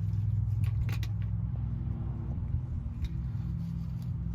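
A steady low mechanical hum, with a few light clicks about a second in and again near three seconds.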